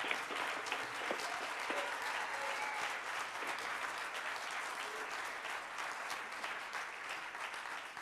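Auditorium audience applauding: a dense, steady clapping that begins to thin out near the end.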